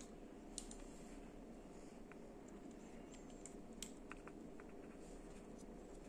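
Faint scattered clicks and taps from a handmade Soviet flip-out folding knife being handled as its blade is folded shut into the handle; the sharpest click comes a little under four seconds in.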